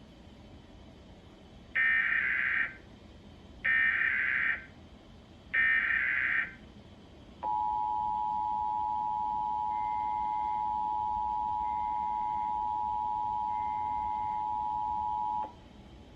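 Emergency Alert System test: three short bursts of the screeching SAME header data tones, each about a second long and evenly spaced. These are followed by the two-tone EAS attention signal, held steady for about eight seconds before cutting off sharply.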